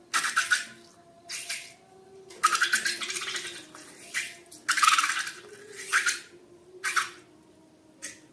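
Slime being squeezed and worked by hand: a string of wet, crackling squelches, about eight of them at uneven intervals, some brief and some lasting close to a second.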